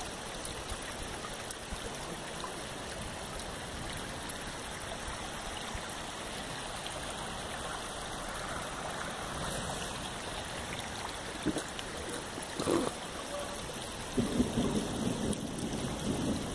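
Steady rushing of flowing water, with a couple of brief knocks and louder, uneven sound near the end.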